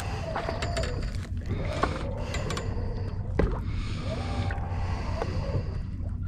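Steady low hum and water noise of a boat at sea, with scattered clicks and taps as a caught lizardfish is handled on the fishing line.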